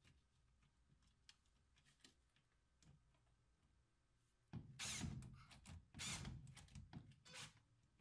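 Handling noise: a few faint ticks, then about halfway through a few seconds of loud irregular scraping and rustling with sharp clicks, as parts are handled and moved.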